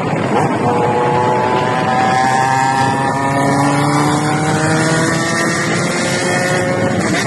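Engine running steadily, its pitch slowly falling, over wind noise on the microphone.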